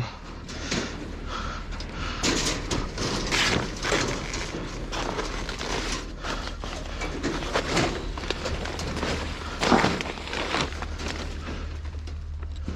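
Steel rebar being handled and placed: irregular knocks and clatter, louder about two, three and ten seconds in.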